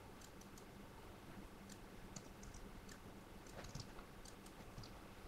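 Faint, scattered clicks of a computer mouse and keyboard being worked, about a dozen across a few seconds, over a low steady hum.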